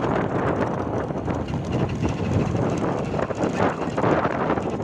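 Hero Maestro Edge scooter under way at speed, its engine and transmission running with a strange noise under throttle that comes from a final-drive gearbox whose gear teeth have worn away after it was run without gear oil.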